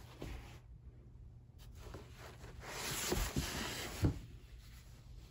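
Rolled bolts of kimono fabric being shifted in a cardboard box: cloth and cardboard rustling and scraping, swelling toward the middle, with a soft knock about four seconds in as a roll bumps down.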